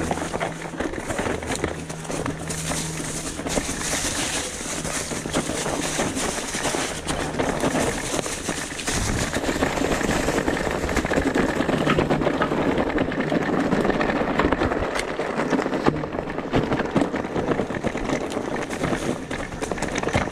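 Electric mountain bike ridden over a rough trail: constant crunch of tyres on stones and rattling of the bike, with a low steady hum from the motor now and then.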